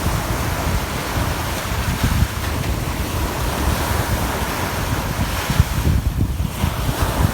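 Big sea waves breaking, with strong wind buffeting the microphone in uneven low rumbles.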